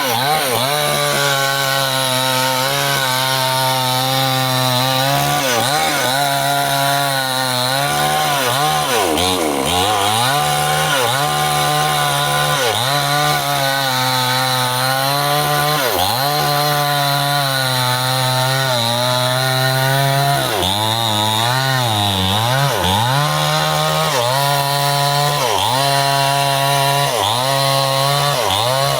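Stihl two-stroke chainsaw running at high revs while cutting bendo wood, its engine pitch dipping briefly again and again as the chain bogs in the cut and then climbing back. The dips come thick and fast about two-thirds of the way through.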